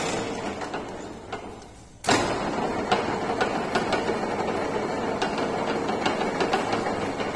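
Metal lathe running with its chuck spinning: a steady mechanical noise with many scattered sharp clicks. The sound fades away over the first two seconds, then comes back suddenly.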